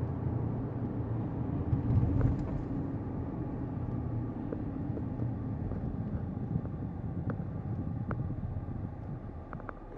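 Low, steady car rumble that swells about two seconds in and then slowly dies away, like a car passing close by.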